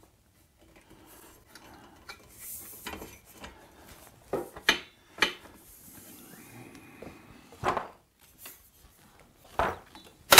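Tubular metal table-saw stand legs being handled and fitted together: rubbing and scraping of the tubes with several sharp knocks and clanks, the loudest near the end.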